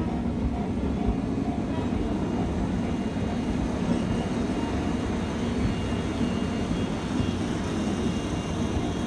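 Passenger train rolling past on the track: a steady rumble with a low hum running through it.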